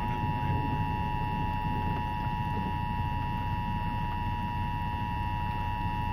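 Emergency Alert System attention signal over the radio: two steady tones sounding together, announcing a tornado warning. A low rumble runs underneath.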